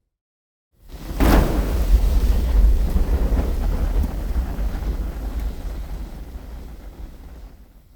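A large burst of fire igniting with a sudden whoosh about a second in, then burning with a deep rumble that slowly fades out near the end.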